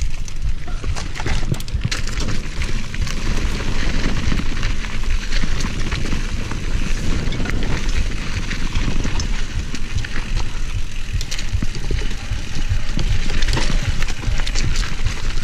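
Mountain bike rolling down a rough dirt trail: tyres crunching over dry dirt and loose rocks, with frequent clicks and knocks as the bike rattles over the bumps, over a steady low rumble on the chest-mounted camera.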